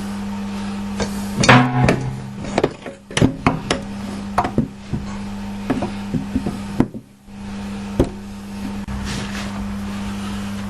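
A run of sharp knocks and wooden clunks, things being handled and set down, over a steady low hum. The knocks come mostly in the first half, then thin out to a few near the end.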